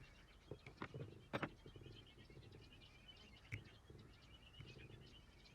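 Near silence, with a few faint clicks and a faint rapid chirping in the background.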